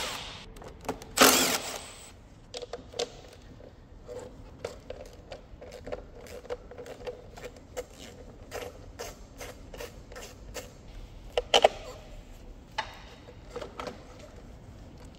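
A cordless drill-driver runs in two short bursts near the start, backing out bolts on a hybrid car's high-voltage battery pack. After that come scattered clicks, knocks and rattles as hands work loose the plastic connectors and parts of the battery's control unit.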